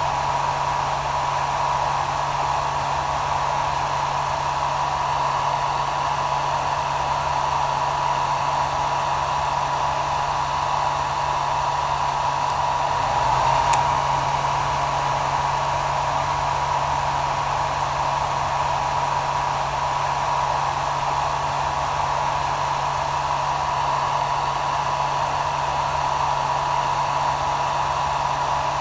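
Hair dryer running steadily: a continuous rush of blown air with a steady whine and a low motor hum.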